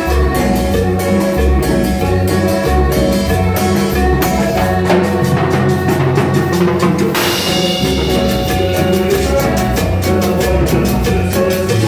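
Live Latin tropical dance band playing a medley: electric bass, timbales, congas and hand percussion under keyboard parts, with a steady dance beat. The deep bass drops out for a couple of seconds around the middle, and a cymbal crash about seven seconds in brings the full band back.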